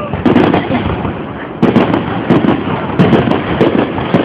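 Aerial firework shells bursting one after another: several sudden loud booms with many sharp crackling pops between them.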